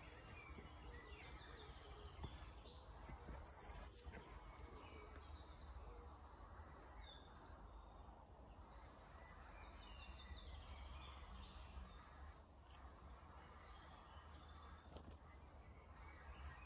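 Faint outdoor birdsong: scattered short chirps and a brief rapid trill from small birds over a low steady background rumble.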